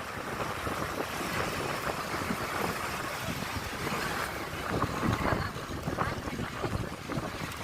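Wind buffeting the microphone in irregular gusts, over a steady rushing noise, as from travelling in the open.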